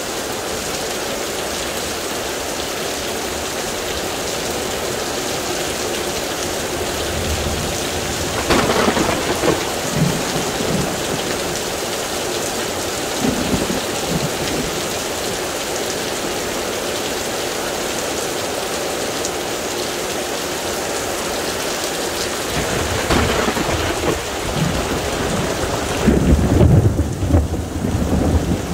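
Heavy rain pouring steadily, with thunder rumbling several times: a roll starting about a third of the way in, more around two-thirds, and the loudest, deepest rumble near the end.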